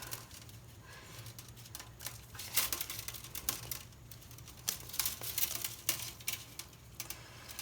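Scattered light clicks and rustles from hands handling and bending a length of 14-gauge solid wire.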